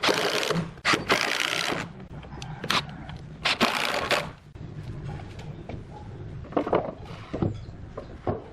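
A tool scraping along wood in three rough strokes of about a second each, followed by scattered knocks and clicks.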